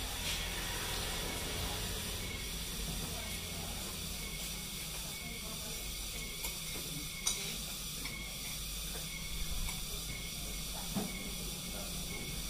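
Steady high hiss, with a few faint clicks of spoons and dishes during a meal. The sharpest click comes about seven seconds in.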